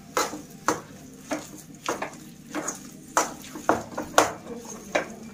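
Metal spoon stirring thick potato masala in a metal kadhai, clinking and scraping against the pan in irregular knocks about twice a second.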